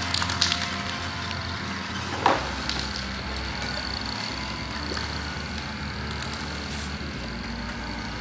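Aerosol spray-paint can spraying a coat of paint, a steady hiss, with a few clicks near the start and one sharp knock about two seconds in.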